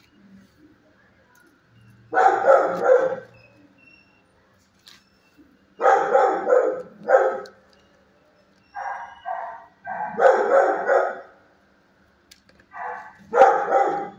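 Dogs in shelter kennels barking in repeated bouts of a few barks each, with short quiet gaps between bouts.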